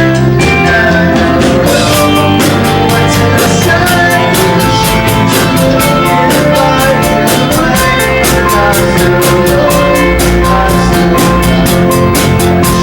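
Rock band playing live: electric guitar over a drum kit keeping a steady beat, with cymbal strokes repeating evenly throughout.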